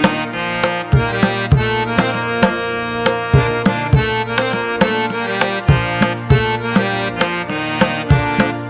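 Instrumental background music: tabla drumming, with deep bass strokes that bend in pitch, over a sustained held melody.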